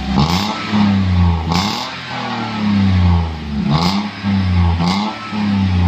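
Daihatsu Ayla's engine revved in several quick blips through an aftermarket exhaust with a stainless resonator, Monel piping and a JS Racing rear muffler. Each rev rises sharply and drops back toward idle.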